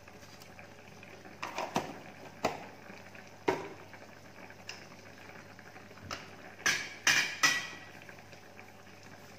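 Broth simmering steadily in a wok over a gas burner, under a series of sharp knocks and clatters from plastic containers and lids being handled on the counter. The loudest clatters come in a quick cluster about seven seconds in.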